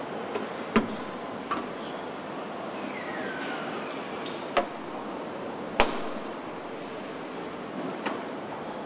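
Car assembly line noise: a steady hum of factory machinery broken by several sharp metallic clanks, the loudest about six seconds in, and a brief falling squeal about three seconds in.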